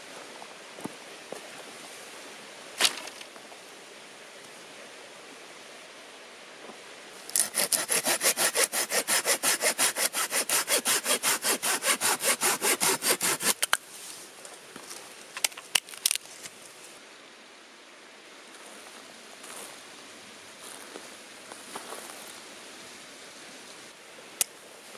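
A hand saw cutting through wood with fast, even strokes, about five a second, for about six seconds starting about seven seconds in. A single sharp knock comes about three seconds in, and a few sharp clicks follow the sawing.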